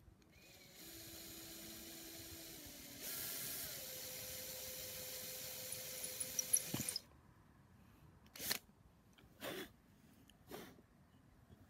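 A flexible-shaft rotary tool drilling a hole through an aerated concrete (AAC) block: the motor starts, steps up to a higher speed about three seconds in, then winds down with a falling pitch and stops. Three short rushes of noise follow.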